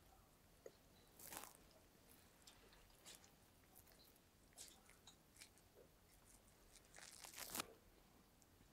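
Near silence: quiet room tone with faint, scattered rustles and light clicks, the strongest about a second and a half in and again about seven seconds in.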